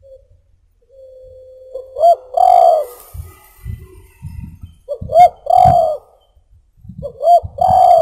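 Spotted dove (tekukur) cooing: three repeated coo phrases about every two and a half seconds, each a short rising note followed by a longer held note.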